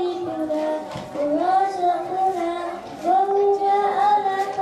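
A man's voice singing a slow devotional chant into a microphone, drawing out long, wavering held notes, with one long note held from about three seconds in.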